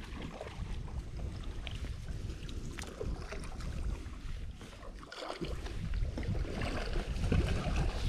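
Wind and handling rumble on a close microphone, with small splashes and clicks as hands work a landing net holding a trout in shallow river water. It grows louder near the end.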